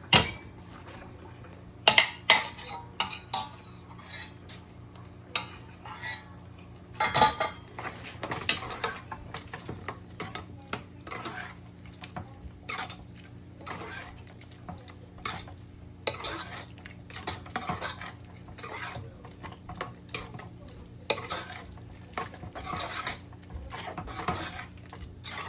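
A metal utensil stirring and scraping in a pan, clanking against it at irregular moments, as the cooked pasta is tossed through the creamy ground-turkey sauce. The sharpest knocks come right at the start, about two seconds in, about seven seconds in, and again a little after twenty seconds.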